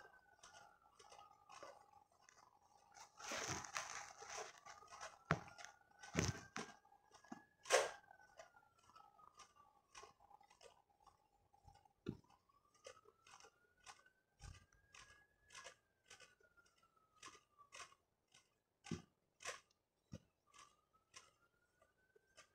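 Crisp, flaky sandwich-press-toasted puff pastry crackling and crunching as a plastic-gloved hand handles it. The crackling is densest about three to eight seconds in, followed by a run of short, even crackles. A faint tone rises and falls several times.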